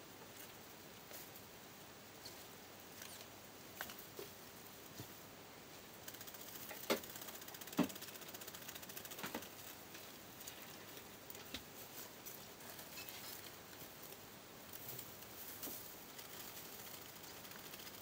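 Faint rustling and light scattered ticks of African pygmy mice scurrying through dry hay and straw bedding, with two sharper clicks about 7 and 8 seconds in.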